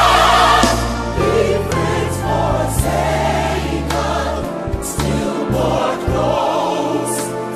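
Gospel choir singing with band accompaniment, steady low bass notes under the voices, in a live concert recording.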